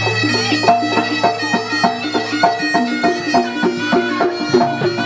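Traditional East Javanese jaranan music: struck, ringing pitched notes in a quick, even beat over a steady low drone.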